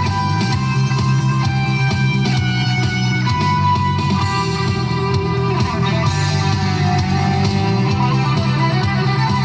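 Instrumental break of a rock song between sung lines: guitars playing over a bass line, with no vocals.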